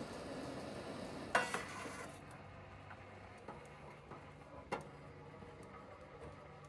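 Metal cookware knocking on a camp stove: a sharp clink about a second and a half in, another near the five-second mark, and a few small ticks between, over a faint steady hiss.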